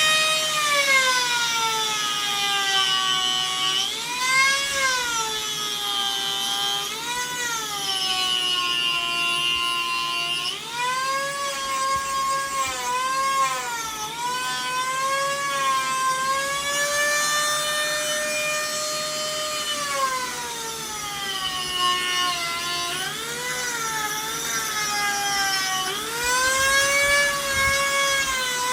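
Dremel rotary tool with a small drum sanding bit, running at high speed as it grinds the nose of a pine carving. It is a high whine whose pitch sags each time the bit is pressed into the wood and climbs back as the load comes off, again and again.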